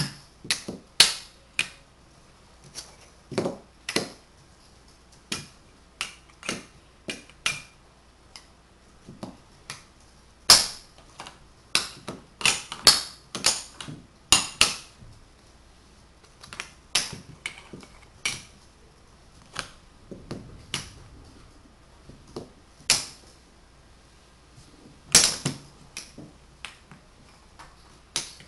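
Tegu magnetic wooden blocks clicking together and being set down on a table: sharp, irregular wooden clicks, some in quick pairs and clusters.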